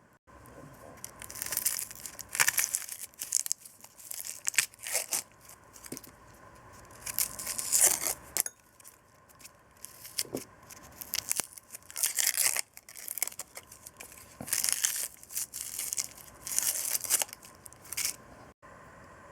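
Irregular crinkling and tearing sounds made by hand, something being peeled or unwrapped in short bursts, louder about 8 and 12 seconds in.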